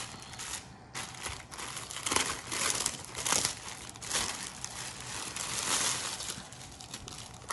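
Thin clear plastic bag crinkling in irregular bursts as it is handled, opened and the packed fabric apron and kit pieces are slid out of it, with a short pause about a second in.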